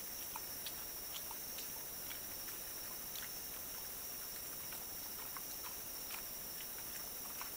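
Wild hog chewing fermented corn bait: irregular soft crunching clicks, a few a second, over the steady hiss of a trail camera's microphone.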